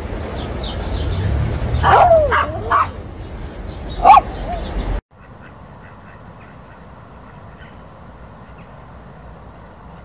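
Small terrier whining and yipping: a few short rising-and-falling cries, loudest about two seconds in and again about four seconds in. Midway the sound drops suddenly to a faint steady background with a few faint squeaks.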